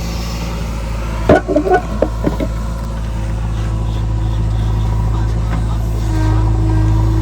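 A heavy diesel engine running steadily at a low drone, with a sharp knock about a second in and a few lighter knocks just after it.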